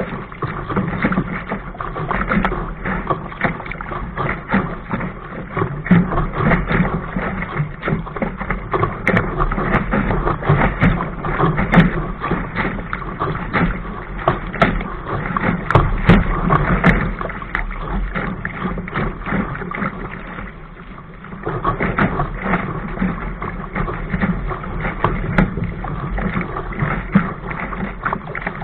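Water rushing and splashing against a sailing dinghy's hull as it sails fast through choppy waves, with frequent irregular slaps of spray. It eases for about a second roughly two-thirds of the way through.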